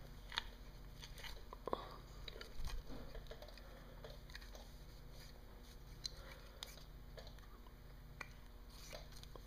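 Faint rubbing and scattered small clicks of a new rubber impeller being twisted by hand into its greased Mercruiser seawater pump housing, with a few light knocks in the first three seconds.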